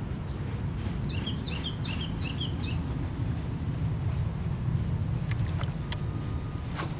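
A bird calling outdoors: a quick series of five high notes, each sweeping downward, lasting under two seconds. A steady low rumble runs underneath, and a few sharp clicks come near the end.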